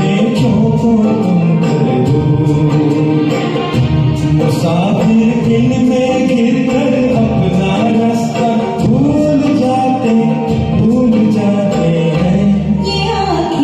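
A singer's voice carrying a Hindi film song melody over a karaoke backing track with a steady, light percussion beat.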